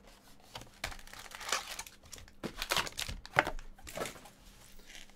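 Plastic wrapping and foil trading-card packs crinkling and rustling as a Panini Contenders Draft box is opened and its packs are pulled out and set down: a run of sharp crinkles and light knocks, loudest about three and a half seconds in.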